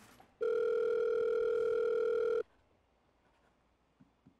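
Telephone ringback tone heard over a phone's speaker: the line is ringing at the other end. One steady ring of about two seconds, then a pause.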